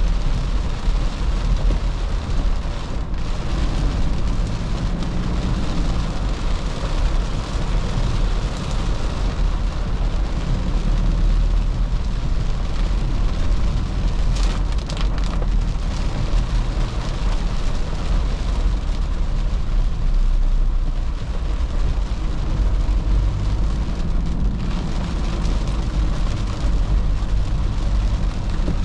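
Toyota Fortuner's 3.0-litre D4D four-cylinder turbodiesel running steadily on the move, with tyre and road noise and rain on the vehicle.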